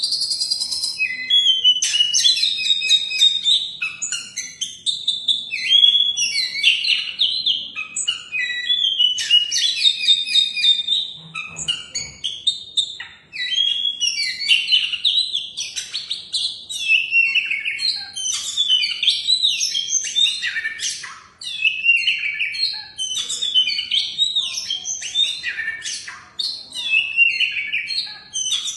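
Oriental magpie-robin (kacer) singing a long, varied song of quick whistled phrases that rise and fall in pitch, with short breaks about 13 and 21 seconds in.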